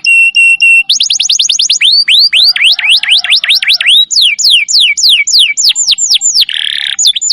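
Domestic canary singing a loud, fast song: a held whistle, then quick trills of rising and falling notes, with a brief harsh rasp near the end.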